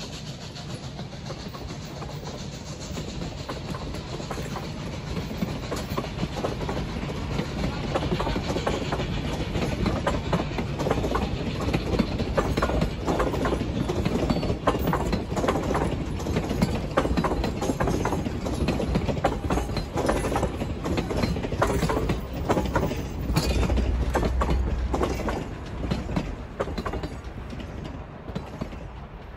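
Durango & Silverton narrow-gauge steam train, double-headed with Southern Pacific No. 18 leading, passing close by: its wheels clatter over the rail joints with a deep rumble. The sound builds over the first several seconds and fades away near the end.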